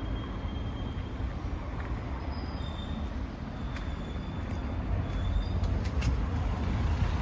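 Steady low rumble of a Ford Transit refrigerated van running, with faint short high squeaks and a few light ticks over it.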